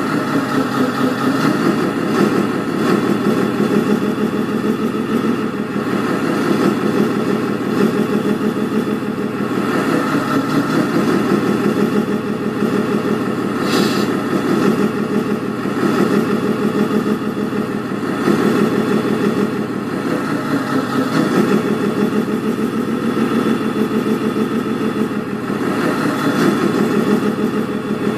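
A 1/14-scale RC truck's electronic sound module plays a simulated diesel truck engine. The engine note runs steadily and rises and falls in pitch every few seconds, like idling with gentle revs.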